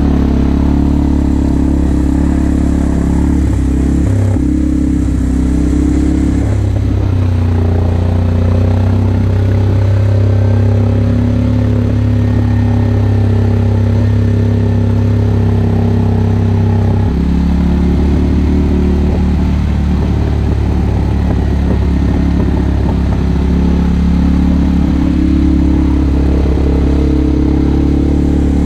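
2019 CF Moto 450L ATV's single-cylinder engine running as the quad is ridden along. The engine note steps up about seven seconds in, holds steady, and drops back around seventeen seconds in.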